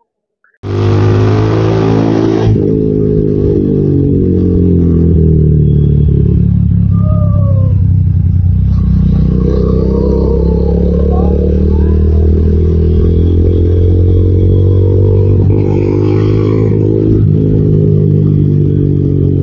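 Motorcycle engine running while riding, its note rising and falling with the throttle, heard close from the onboard microphone. A rush of wind noise covers the first couple of seconds.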